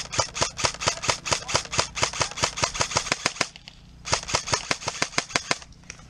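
Airsoft guns firing long strings of rapid shots, about six or seven a second, with a break of about half a second near the middle.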